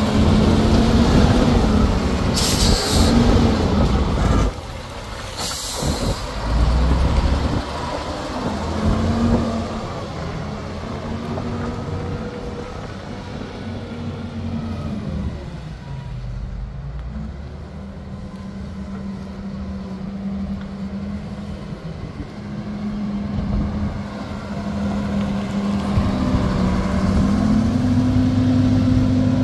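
FL958G wheel loader's diesel engine running under load as it pushes rock and dirt, its pitch stepping up and down with the throttle. Two short hisses come a few seconds in; the engine grows quieter through the middle and louder again near the end.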